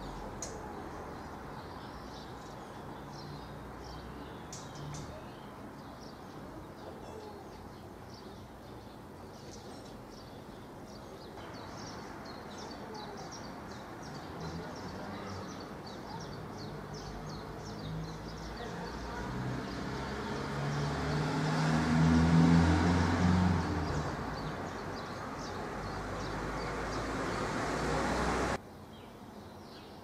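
Outdoor ambience of birds chirping, short high chirps repeated throughout over a steady background hiss. About two-thirds through, a low rumble swells to the loudest point and fades, and the sound drops off suddenly near the end.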